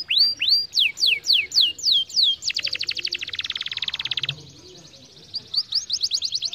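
Canary singing: a run of whistled notes, each sweeping down in pitch, about five a second, then a rapid buzzing trill for nearly two seconds. After a brief lull the falling notes start again, faster.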